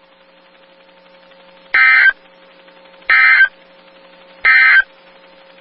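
Three short bursts of NOAA Weather Radio SAME digital data tones, about a second apart, over faint static and a steady low tone: the end-of-message code that closes an Emergency Alert System broadcast.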